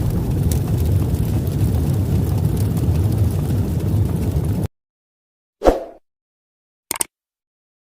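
A loud, deep rushing noise, like an explosion or rumble sound effect in an edited outro, that cuts off suddenly about four and a half seconds in. Two short hits follow, a little over a second apart.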